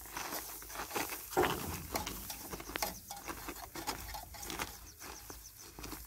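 Irregular rustling and crackling of dry wheat straw and stubble being handled and pushed about by hand, with scattered sharp clicks.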